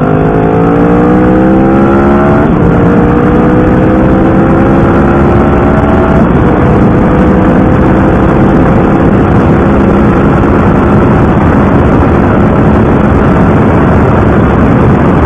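Cruiser motorcycle engine accelerating through the gears, heard from the rider's seat: its pitch climbs, drops at an upshift about two and a half seconds in and again about six seconds in, then rises slowly as the bike holds speed.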